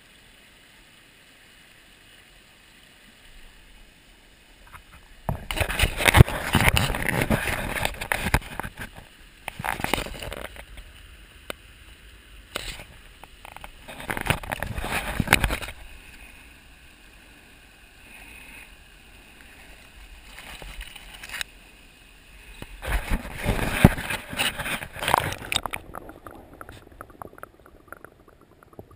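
Shallow stream water splashing and sloshing around a hand and a brook trout held at the surface against a waterproof action camera, in four bouts separated by quieter stretches. Near the end the camera goes underwater and the sound turns muffled.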